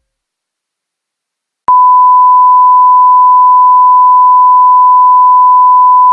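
Colour-bar test tone: a single loud, steady beep at one pitch that starts suddenly about a second and a half in, after near silence.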